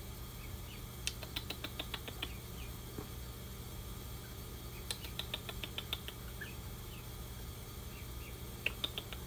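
Cotton Patch goose gosling peeping: three quick runs of short, high peeps, about eight to a run, with a few softer single peeps in between.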